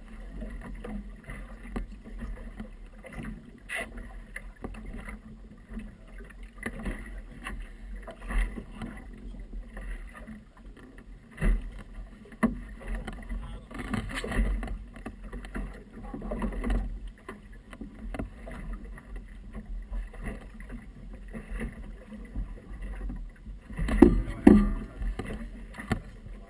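Water slapping irregularly against a small boat's hull, with wind rumbling on the microphone; a few louder knocks come near the end.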